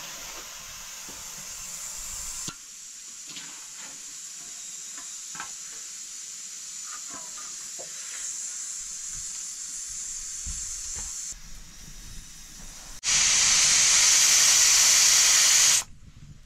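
Steady hissing and sizzling of food cooking, with a few light clicks of stirring, then a much louder burst of hissing about three seconds long near the end that cuts off suddenly.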